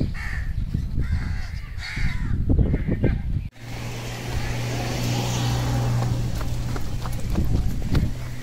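Birds calling with short harsh cries. A little over three seconds in the sound breaks off abruptly, and a steady low hum follows with a few light clicks near the end.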